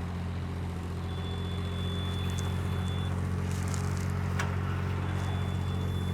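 Engine of a lift idling steadily, a low hum, with a single sharp click about four seconds in.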